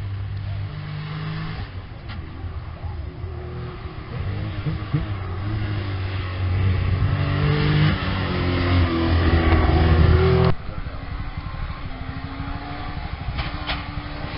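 Classic Porsche 911 rally car's flat-six engine running hard and changing pitch as it drives by, growing louder as it nears, then cut off suddenly about ten seconds in. After that a more distant rally car engine can be heard.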